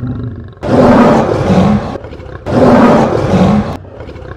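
Lion roar sound effect: two long roars, the first beginning under a second in and the second about two and a half seconds in, after a quieter lead-in.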